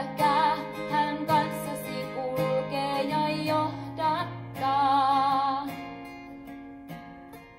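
Female vocalist singing a Finnish worship song to acoustic guitar. She holds a long final note with vibrato that ends about two thirds of the way in, leaving the guitar chord to ring out and fade.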